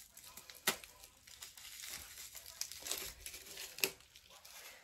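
Plastic wrapping crinkling as small plastic containers are unwrapped by hand, with two sharp clicks, one under a second in and one near the end.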